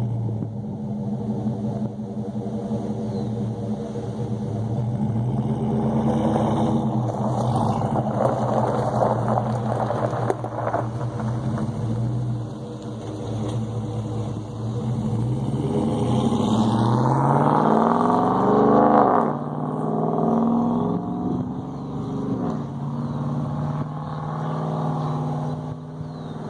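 Exhaust of a 2015 Chevy Silverado's 5.3L V8, running through Kooks long-tube headers and a Jones JT3030 turbine muffler, on an easy take-off and drive-by. The note starts steady, climbs in pitch as the truck accelerates, drops off sharply about two-thirds of the way through, then settles into a steady drone.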